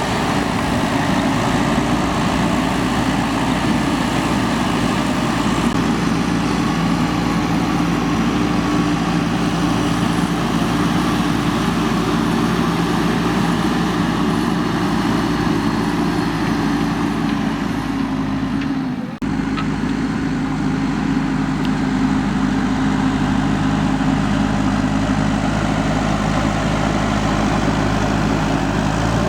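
JCB 3DX backhoe loader's diesel engine running steadily while the machine works, with a brief break about two-thirds of the way through.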